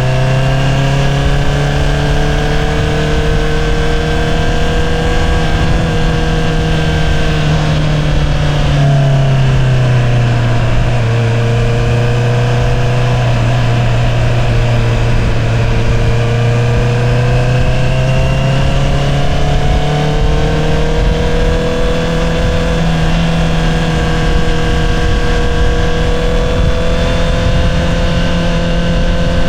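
2022 Honda CBR650R inline-four running through an Akrapovič single-outlet exhaust while cruising. The engine note rises and falls gently with throttle, dips about nine seconds in, then climbs again, and steps up in pitch late on.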